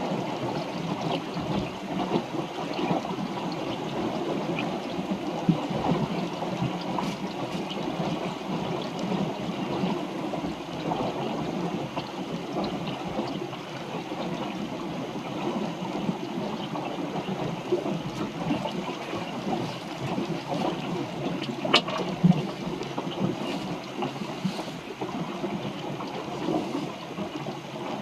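Water splashing and gurgling along the hull of a small sailboat under way. There are two sharp knocks about three-quarters of the way through.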